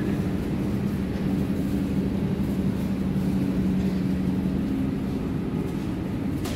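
Berlin U-Bahn F-series train standing at an underground platform with its doors closed, its equipment giving a steady low hum over a rumble.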